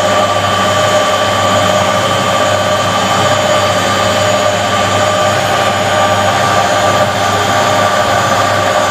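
Hotpoint First Edition WMA 9 washing machine running loudly on its replacement motor: a steady whine of several high tones over a constant low hum, unchanging throughout. The owner is alarmed by the noise and ready to cut the power in case the new motor fails.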